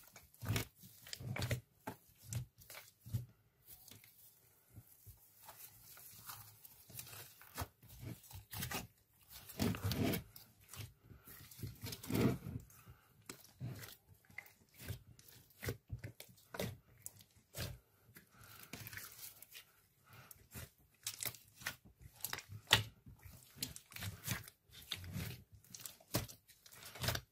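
Slime with foam beads being kneaded, squeezed and folded by hand in a glass dish: irregular sticky crackles, squelches and small pops, some louder than others.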